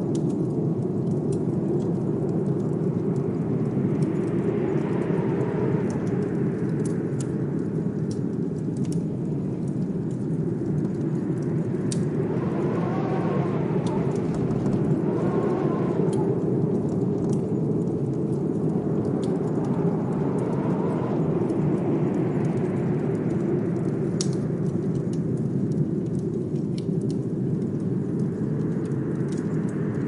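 Blizzard wind rushing steadily, with gusts that swell and fade every few seconds and two whistling howls near the middle. Scattered small fireplace crackles are heard over it.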